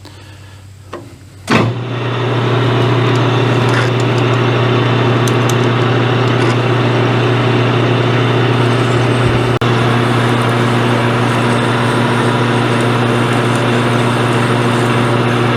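Metal lathe switched on with a click about a second and a half in, its motor then running with a steady hum while a 7/16-inch reamer is fed into a drilled hole.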